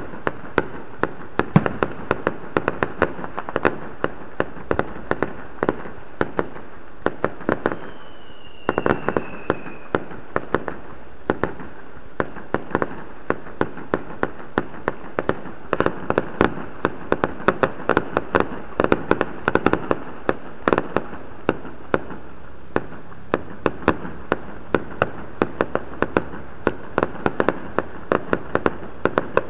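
Aerial fireworks display: a continuous run of shell bursts, sharp bangs and crackles following one another many times a second, with some louder reports standing out among them.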